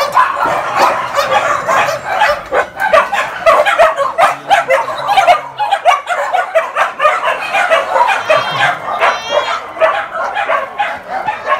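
Many dogs barking and yipping at once in shelter kennels, a dense, continuous chorus of overlapping barks. A high wavering call rises above it briefly about eight seconds in.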